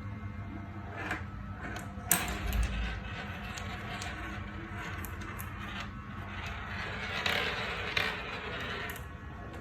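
Marbles rolling and clattering down a marble run track, with scattered clicks, a sharp clack about two seconds in and a longer rolling rush near the end.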